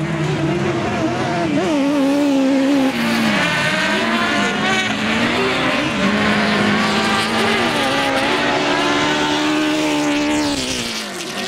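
Several autocross buggy engines racing together, revving and changing pitch repeatedly as they accelerate, shift and lift off, with tyre noise on the dirt. The sound eases off slightly near the end.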